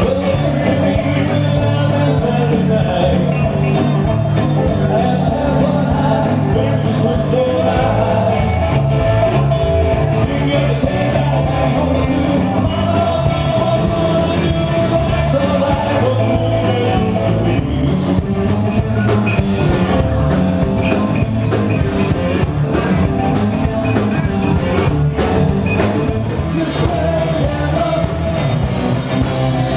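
An 80s-style rock song played by a band with a lead singer, guitar and drums, at a steady loud level.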